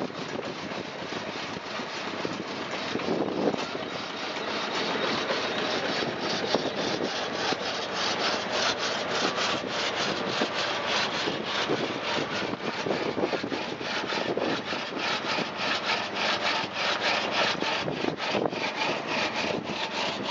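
1891 Ireland straight-line drag saw cutting through a log: its long reciprocating blade rasps back and forth. After a few seconds the strokes become a distinct, even rhythm.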